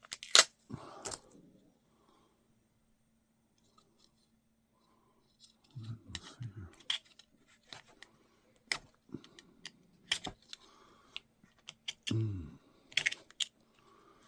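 Scattered sharp clicks and scrapes of a hand tool working against the small metal and plastic parts of a laptop, prying at a Wi-Fi card that won't pop off.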